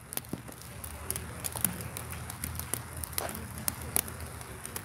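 Low steady outdoor background noise with a few faint, scattered ticks and knocks; no loud bat-on-ball crack.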